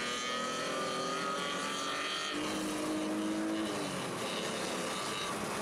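Car engine running at speed with road noise, heard from inside the cabin; the engine note climbs slowly and changes pitch about two seconds in.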